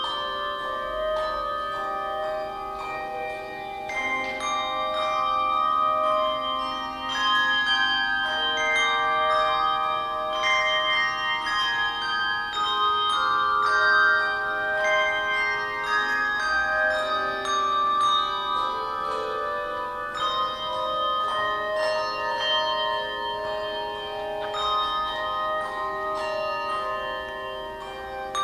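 Handbell choir ringing a piece in chords, several bells sounding together and each note ringing on and overlapping the next.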